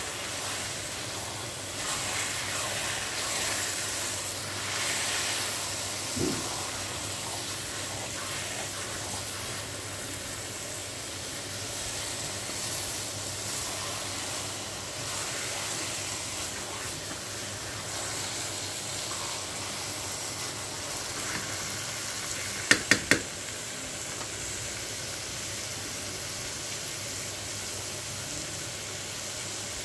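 Grated carrots frying in desi ghee in a non-stick wok, a steady sizzling hiss as they are stirred with a spatula: the roasting stage, with the carrots' own water cooked off. Three quick sharp clicks come about three-quarters of the way through.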